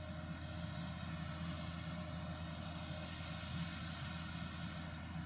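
Ropa Tiger 4 self-propelled sugar beet harvester running steadily while lifting beets, a low, even engine drone. A few faint ticks come near the end.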